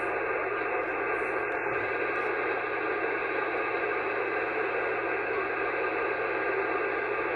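Amateur radio receiver on the 10-metre band putting out a steady hiss of band noise on an open SSB channel between transmissions, with no signal on the frequency.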